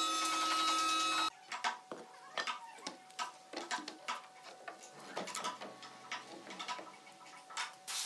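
Light wooden knocks and clatter of plywood wardrobe panels being lifted and stood upright on a concrete floor, irregular taps and clunks. A steady mechanical hum cuts off suddenly about a second in.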